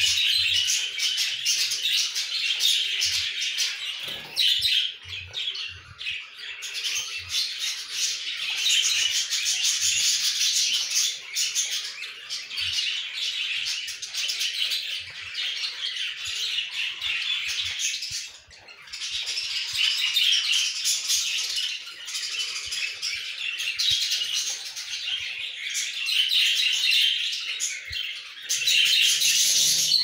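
Budgies chirping and chattering without pause, a dense mass of quick high chirps. There is a short lull about four seconds in and a brief gap near the eighteen-second mark. A few soft low bumps show in the first several seconds.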